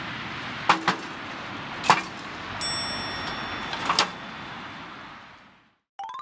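Food sizzling in a wok over a campfire, with a few sharp clinks of a metal utensil against the pan. The sound fades out about five and a half seconds in, and a short rising electronic tone follows.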